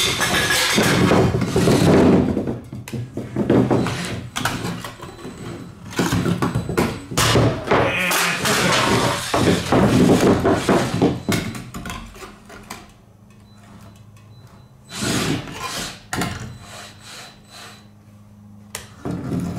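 Beetleweight (3-pound) combat robot driving about a wooden tabletop: repeated thunks, knocks and clattering as its metal shell and arm bang against the boards and aluminium cans. It goes quieter for the last several seconds, with a faint steady hum and one more loud clatter.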